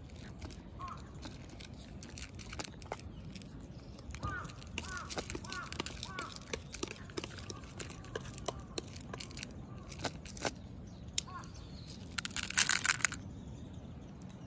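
A cat crunching dry kibble from a bowl: a run of small crisp crunches. A bird calls several times in the background about four to six seconds in, and a short loud burst of rustling noise comes near the end.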